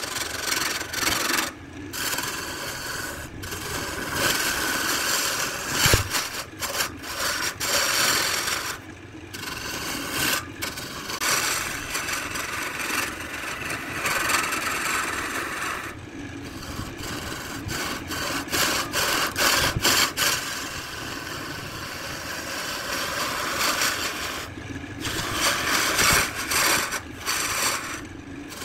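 A turning gouge cutting a spinning lathe blank made of colored pencils set in epoxy: a continuous scraping cut, broken several times by short gaps as the tool comes off the work between passes.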